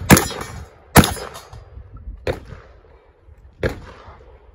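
Shotgun shots during a competition stage: four shots, the first two loud and about a second apart, then two weaker ones further apart, each followed by a short echo.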